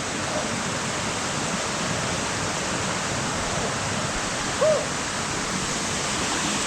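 Steady rushing of water from a mountain stream, an even hiss with no rhythm. About two-thirds of the way through there is a brief short tone.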